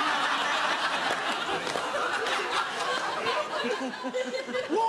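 Studio audience laughing, a crowd of many voices laughing together steadily.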